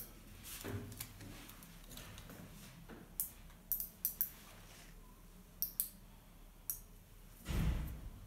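Surgical instruments clicking: a run of short sharp clicks, several in quick pairs, as metal instruments are handled. A louder dull rustle comes near the end.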